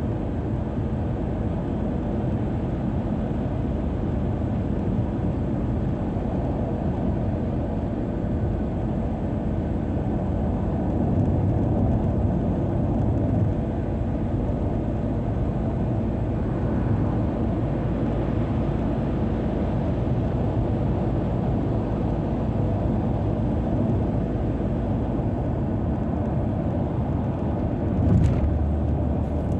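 Steady road and engine noise of a car driving on a highway, with a brief louder thump near the end.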